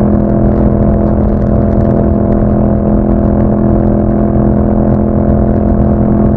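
Yamaha MT-07's 689 cc parallel-twin engine running through an aftermarket Akrapovič exhaust with a dB killer fitted, holding a steady engine speed with no revving.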